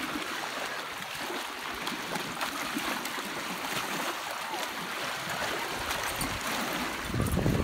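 Steady splashing and trickling of lake water. About seven seconds in, wind buffets the microphone with a low rumble.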